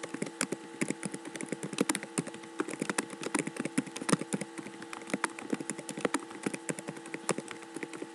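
Typing on a computer keyboard: a quick, uneven run of key clicks, over a steady mains hum.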